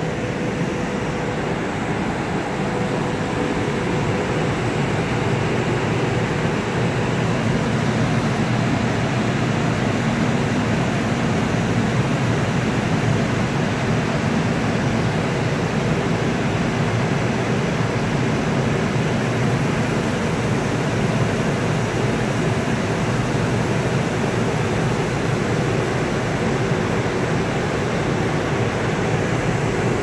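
Ventilation fans of a parked Stadler FLIRT 415-series electric train running steadily: an even rushing noise weighted to the low end. A faint hum drops away about four seconds in.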